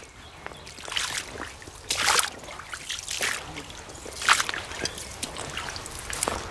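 Footsteps of rubber boots on wet gravel and dirt, about one step a second.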